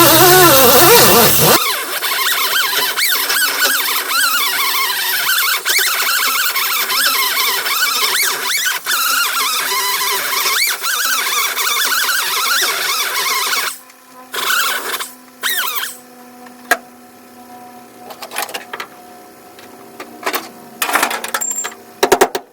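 A high-speed power tool smoothing down sheet metal, its whine rising and falling in pitch as it bites and eases off. It stops about fourteen seconds in, followed by a few short bursts.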